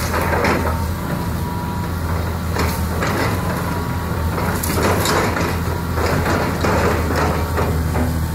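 Hitachi excavator's diesel engine running steadily under load while its bucket tears into a wood-frame house, with repeated cracking and splintering of timber and debris crashing down.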